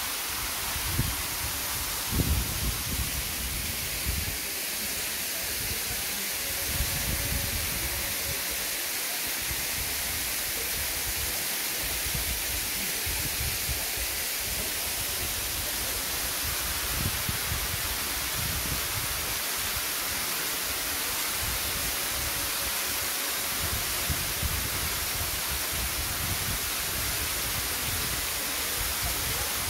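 Waterfall pouring over rock into a plunge pool: a steady rushing hiss, with irregular low rumbling underneath.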